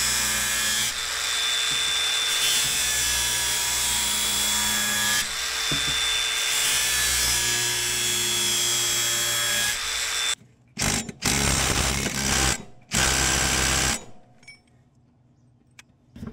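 Cordless angle grinder with a flap disc grinding a steel lawn mower blade to touch up its edge, running steadily for about ten seconds. After that come a few short loud bursts, each cutting off suddenly, and then near quiet.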